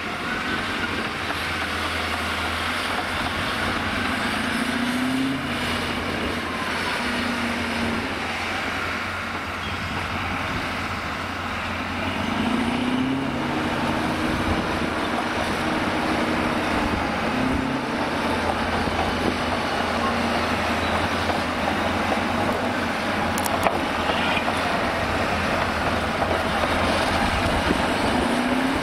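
Cat D9R crawler bulldozer's diesel engine running under load as it pushes stumps and slash, its pitch rising briefly several times as the engine revs. One sharp knock about three-quarters of the way through.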